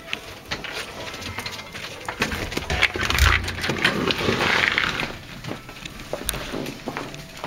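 A door being worked by its knob amid rustling handling noise and clicks, with a heavy thump about three seconds in.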